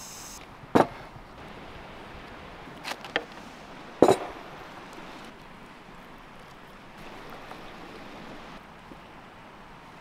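A metal serving spoon knocks against a wooden serving board four times: a sharp knock about a second in, a quick pair near three seconds, and the loudest just after four seconds. A steady hiss runs underneath.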